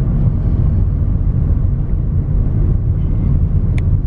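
Steady low rumble of road and engine noise inside a moving car's cabin, with a brief light click near the end.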